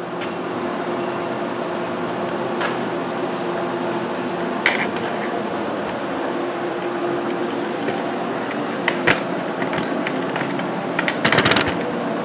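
Arc welding on the aluminum stub of a transmission case: a steady buzzing hiss with an even hum, broken by a few sharp clicks and a louder cluster of snaps near the end.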